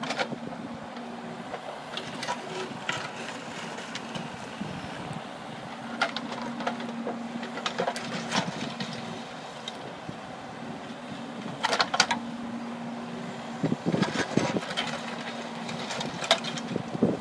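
Case mini excavator's diesel engine running steadily while it digs, with scattered sharp knocks and clanks from the bucket and boom working the soil, in clusters about two, six, twelve and fourteen seconds in.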